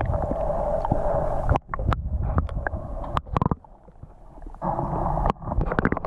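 Muffled underwater noise from a camera held submerged in a pool: a low rumble with gurgling and many small knocks and clicks as the camera moves, dropping away for about a second past the middle.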